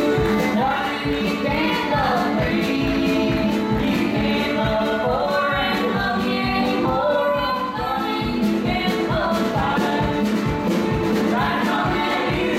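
Live folk band: several voices singing together over acoustic guitar, with a steady drum beat.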